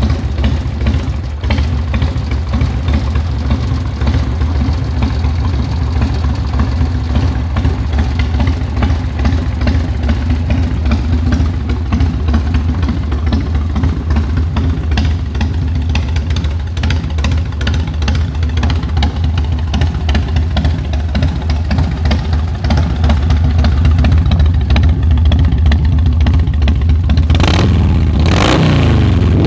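1993 Harley-Davidson Softail Springer's 80 cubic inch Evolution V-twin running at a steady idle through a Vance & Hines full exhaust, then revved near the end with the pitch climbing.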